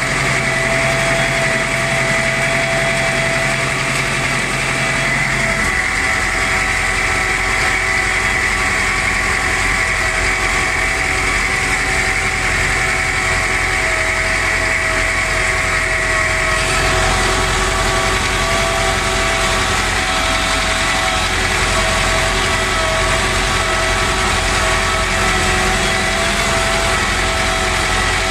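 IMT 560 tractor's diesel engine running steadily under load while pulling a disc harrow, heard from inside the cab. The tone shifts slightly about five seconds in and again about sixteen seconds in.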